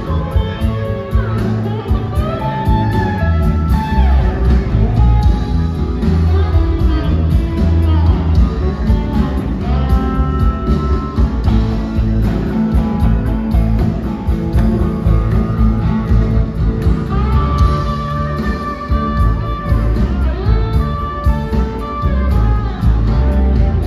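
Live electric band playing a blues: electric guitar lead lines with bent notes over bass, drums and keyboards.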